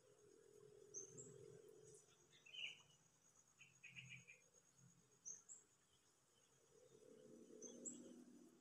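Faint high-pitched chirps: a short rising note that repeats three times, a few seconds apart, with a couple of lower twittering notes in between, over a faint low background hum.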